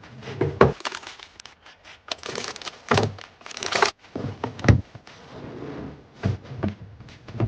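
Groceries being unpacked and put away: plastic packaging rustles and crinkles in two short stretches, among several hard knocks of items being set down.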